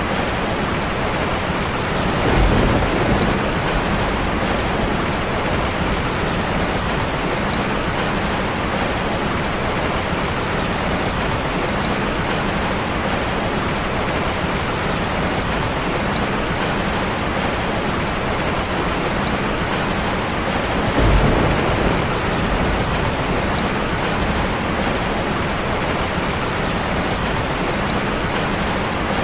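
Steady heavy rain, with two low rolls of thunder swelling briefly, one a couple of seconds in and one about two-thirds of the way through.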